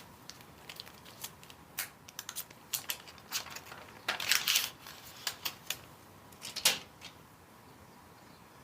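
Handling noises: a series of irregular sharp clicks and taps, with a brief rustle about four seconds in and a louder click near the end.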